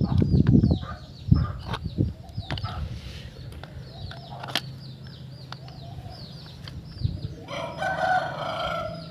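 A rooster crowing once near the end, over many short, high chirps from small birds or chicks repeating throughout. Loud knocks and handling noise are heard in the first couple of seconds.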